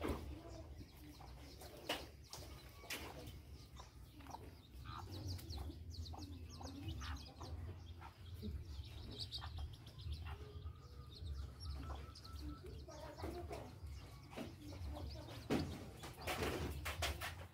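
Faint yard ambience: birds chirping and chickens clucking, with a louder, denser stretch of sound about sixteen seconds in.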